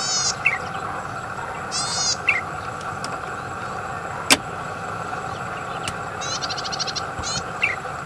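Golden-headed cisticola singing three times: each phrase is a high buzzy trill followed by a short, lower liquid note. A single sharp click cuts in about halfway, over a steady background hiss.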